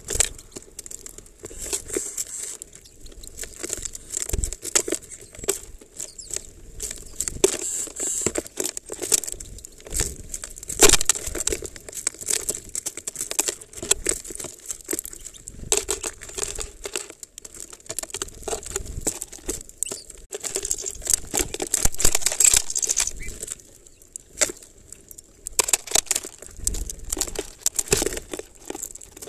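Eurasian tree sparrows pecking and rummaging through sunflower seeds and grain in a plastic-bottle feeder: a dense, irregular run of small clicks and rustles as seeds and husks rattle against the plastic, with a brief lull about three-quarters of the way through.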